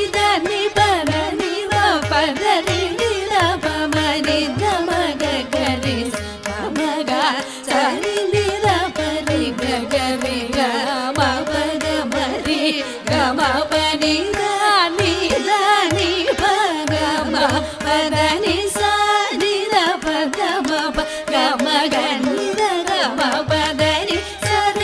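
Carnatic vocal music: a varnam in raga Kalyani set to Adi tala, sung with gliding, ornamented melodic lines over instrumental accompaniment. Mridangam and ghatam strokes keep a steady rhythm underneath.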